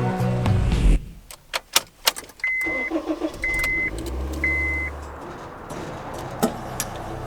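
Car being started: a few sharp clicks, three short warning-chime beeps about a second apart, and the engine starting and then running steadily.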